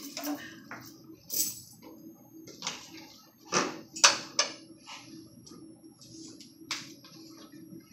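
A handful of short, sharp clinks and knocks at irregular intervals, the loudest about four seconds in, over a faint steady room hum.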